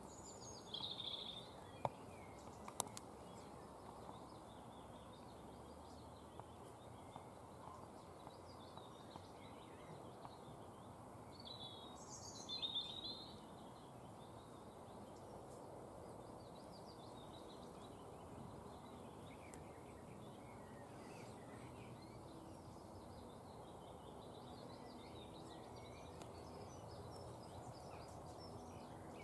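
Faint wild birds calling and chirping over a steady outdoor hiss, with a louder call just after the start and another about twelve seconds in.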